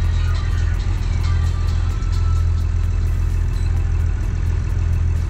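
Boat's marine diesel engine idling with a steady low drone and a faint regular ticking about three times a second.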